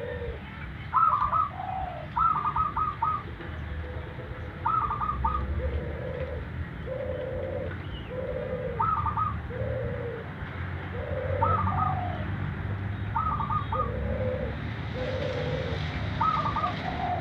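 Zebra dove (perkutut) cooing over and over: short stuttering runs of three or four quick high notes alternate with lower, longer coos.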